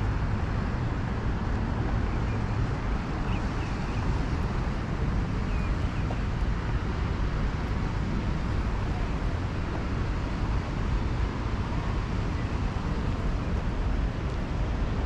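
Steady rumble of city road traffic, with no single vehicle standing out.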